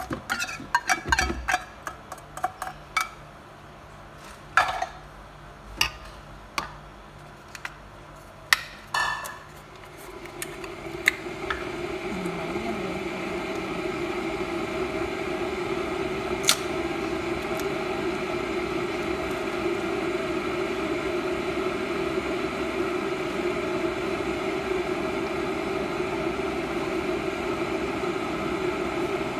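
A metal utensil clinks and taps against a stainless steel mixing bowl in quick, sharp strikes for about the first ten seconds. A steady machine hum then rises over a few seconds and holds, with one more sharp click partway through.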